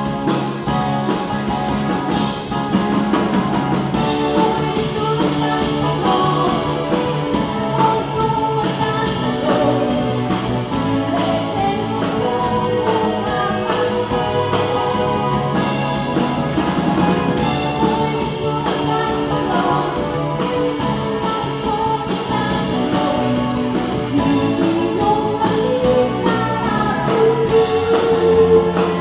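Live band playing a song, a woman singing over electric guitar, electric bass, keyboard and drum kit.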